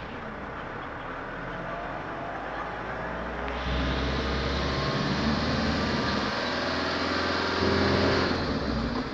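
Vehicle engine heard from inside the cab while driving, its pitch rising as it accelerates. It gets louder about a third of the way in and eases off near the end.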